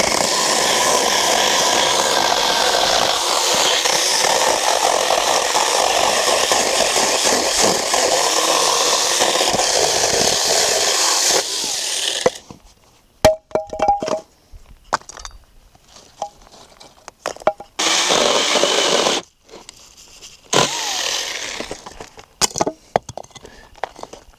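Battery-powered saw cutting through firewood, running steadily for about twelve seconds and then stopping suddenly. Scattered knocks follow, with two shorter bursts of cutting later on.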